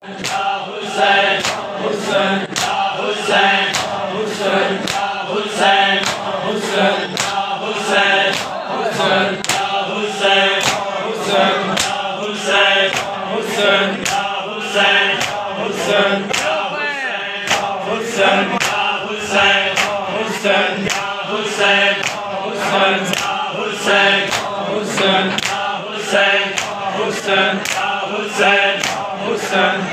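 A large group of men chanting a noha, a Shia mourning lament, together, with sharp rhythmic hand slaps of chest-beating matam about two a second.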